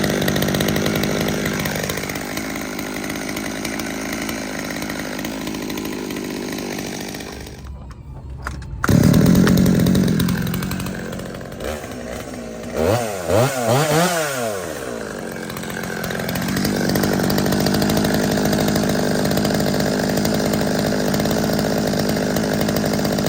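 Small two-stroke chainsaw engine (Holzfforma G111) running steadily, with a brief break about eight seconds in. After that it is revved up and down several times in quick succession, then settles back to steady running.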